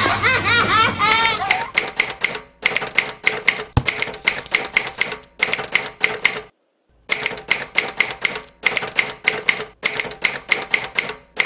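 Excited voices and squeals at the start, then a typewriter sound effect: rapid key clacks, about four a second, in runs broken by short pauses. The clacks stop for about half a second a little past the middle, and one low thump comes near 4 s.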